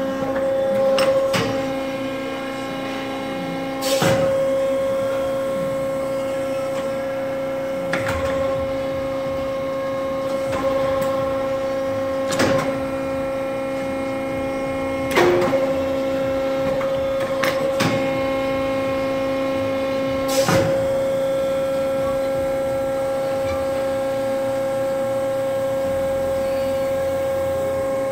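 Pines NC-2 CNC tube bender's hydraulic power unit humming steadily, with sharp clunks and knocks every couple of seconds as the machine's clamp, pressure die and bend head actuate through a bend cycle on steel tube. The knocks stop about twenty seconds in, leaving only the hum.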